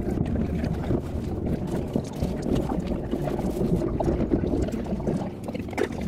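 Running noise of a moving passenger train heard from inside the carriage: a steady low rumble with scattered clicks and knocks.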